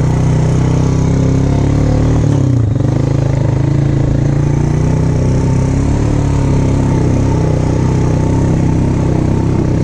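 Quad bike (ATV) engine running steadily under way. Its note dips briefly about two and a half seconds in, then picks up again.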